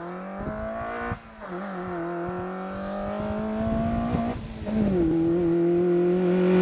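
Car engine pulling hard through the gears as it approaches, with two short lifts for upshifts, one about a second in and one just past four seconds, the pitch dropping after each and climbing again. It grows steadily louder as the car nears.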